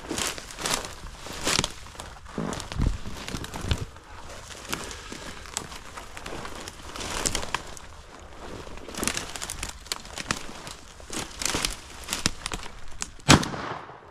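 Footsteps crunching through thin snow and dry brush, with twigs and branches scraping and crackling against clothing in an uneven stream. One sharp crack near the end stands out as the loudest sound.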